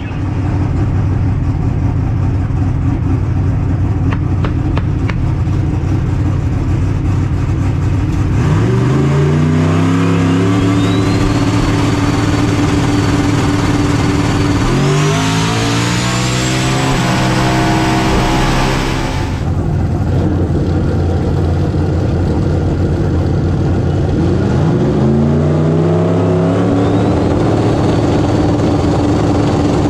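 LS V8 drag car engine running, then revving up hard from about eight seconds in, its pitch climbing, dropping and climbing again around fifteen seconds in, easing off around twenty seconds in and climbing again near the end. A thin high whine rises along with the engine.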